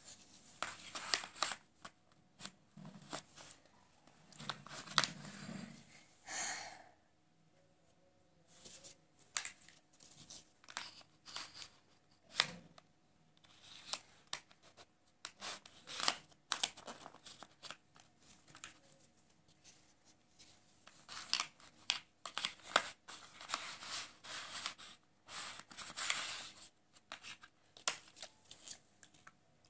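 Thick plastic jigsaw puzzle pieces being picked up, set down and slid over a sheet of card: irregular clicks and knocks with short scraping and rustling strokes.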